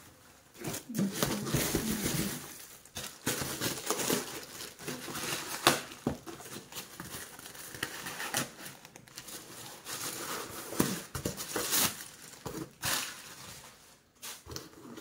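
Plastic packaging crinkling and rustling as a plastic mailer bag is handled, irregular and continuous with a few sharp crackles.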